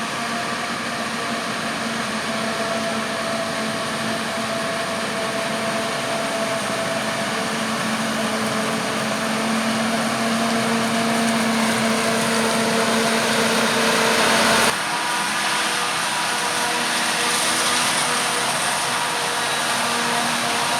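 Diesel engine of heavy harvest machinery running steadily under load, growing gradually louder for about fifteen seconds, then cutting abruptly to a similar, slightly quieter engine sound.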